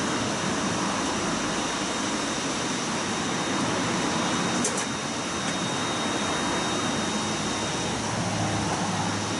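Daihatsu Mira Van engine running with a steady rattle coming from a failing alternator, the abnormal noise that the owner had taken for the water pump.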